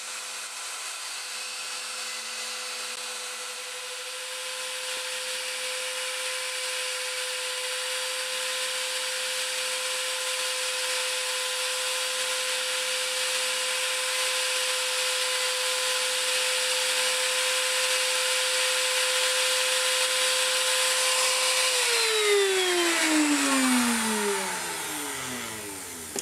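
Router on an ornamental lathe running at a steady high whine as it cuts into a wooden blank, the hiss of the cut growing slowly louder. About 22 seconds in it is switched off, and its pitch falls as it spins down.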